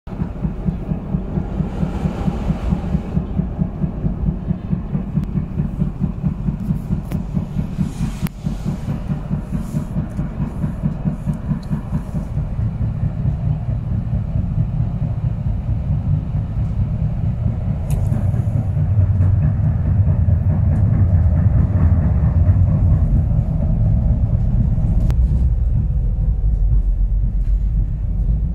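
Interior sound of a moving tram: a steady low rumble with a fast, even pulsing, getting louder about two-thirds of the way through.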